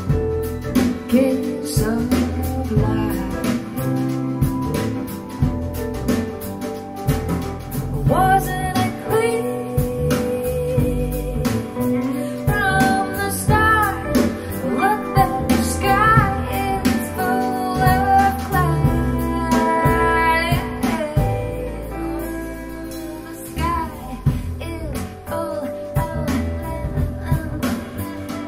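Live recording of a woman singing over guitar, bass and percussion, played back through JBL L100 Classic 75th speakers. The voice comes in with a wavering, vibrato-laden line about eight seconds in and drops back after about twenty seconds, leaving the band quieter.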